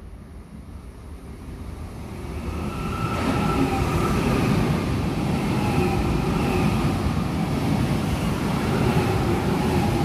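Frecciarossa 1000 high-speed electric train approaching and running past close alongside the platform. The sound builds over the first few seconds into a steady rush of wheels on rail, with a faint whine above it.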